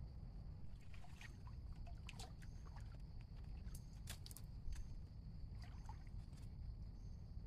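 Water splashing and sloshing in short irregular bursts, over a steady high-pitched hum.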